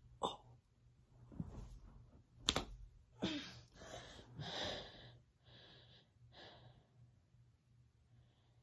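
A woman breathing hard from the effort of sit-ups: a run of short, noisy breaths and gasps, about one a second, fading after about seven seconds. Two short sharp sounds stand out, one just after the start and the loudest about two and a half seconds in.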